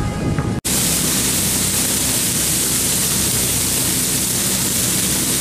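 Meat fillets sizzling steadily on a hot griddle, starting abruptly under a second in after a brief moment of crowd noise.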